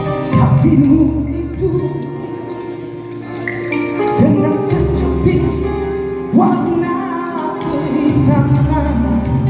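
Live band music from a Malay pop song, with held chords and a melodic line; new notes come in about four seconds in and again about six seconds in.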